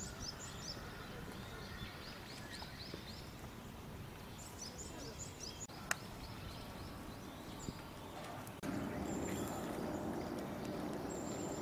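Outdoor ambience with small birds chirping in quick, repeated high notes. About three-quarters of the way through, the sound changes suddenly to a louder steady rush of water pouring from a spout into a concrete trough.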